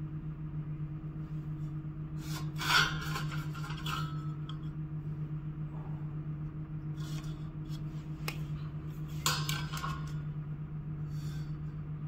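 A steel square and ruler clinking and scraping against a perforated galvanized steel cable tray as marking lines are drawn, in a few short bursts, the loudest about two and a half seconds in. A steady low hum runs underneath.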